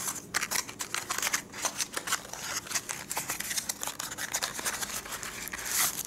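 Thin cardboard box handled and opened by hand: the inner tray scraping and rustling as it is slid out of its sleeve, with a louder, denser rustle near the end.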